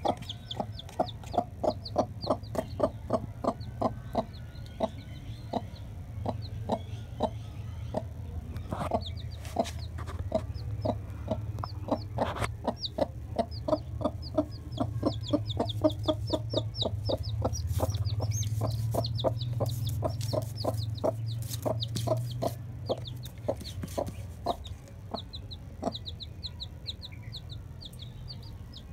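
Mother hen clucking steadily, a few short low clucks a second, while a chick peeps in quick high runs. A low steady hum runs underneath, louder in the middle.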